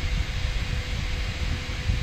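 3D printer running a print: a steady whir of cooling fans and motors with a faint constant hum and a fluttering low rumble.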